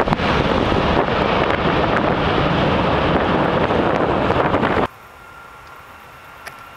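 Loud steady rushing roar of wind buffeting the microphone mixed with a jet airliner's engines on the runway. It cuts off abruptly about five seconds in, leaving a much quieter background with a faint steady high tone.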